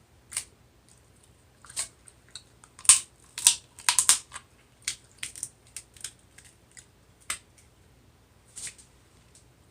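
Close-up eating sounds of a seafood boil: irregular sharp crunches, cracks and wet clicks as shellfish is pulled apart and chewed, thickest and loudest about three to four seconds in.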